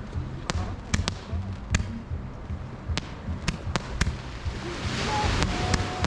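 Fireworks going off overhead: a string of sharp cracks and bangs at irregular intervals, about ten in all, with a burst of hiss about five seconds in. Faint background music with a low beat runs underneath.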